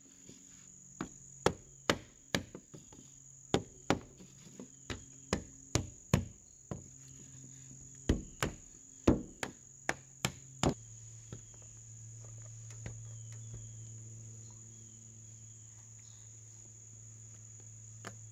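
Repeated sharp knocks of a wooden block struck against a window screen frame to tap it into its track, about two a second and uneven, stopping after about ten seconds. Insects trill steadily throughout.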